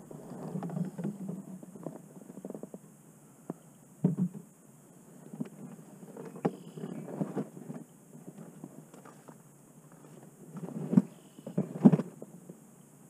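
Irregular knocks and thumps from movement in a small boat, loudest twice near the end.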